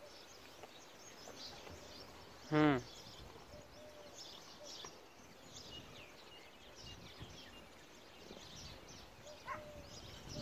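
Birds chirping over a quiet rural background, with one short, loud, wavering bleat from a farm animal about two and a half seconds in.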